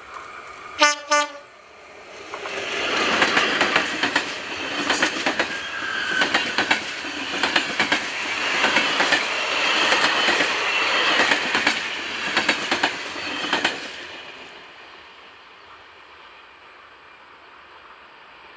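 Electric locomotive gives two short horn blasts about a second in, then it and its passenger coaches pass close by, the wheels clicking rhythmically over rail joints. The noise dies away after about fourteen seconds.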